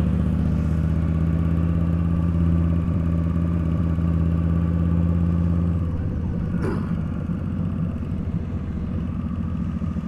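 Yamaha XVS1300 V-Star's V-twin engine running steadily at cruising speed, heard from the rider's seat, then easing off about six seconds in as the bike goes into a bend.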